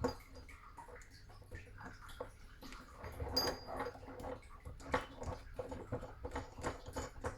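Irregular light metallic clicks and clinks of tap mounting hardware as the fixing nut is screwed down the threaded stem to secure it.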